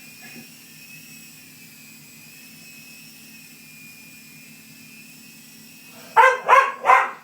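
Small toy remote-control helicopter hovering, its electric motor and soft rotor giving a steady high whine over a faint low drone. About six seconds in, a small hound barks three times in quick succession, the loudest sound here.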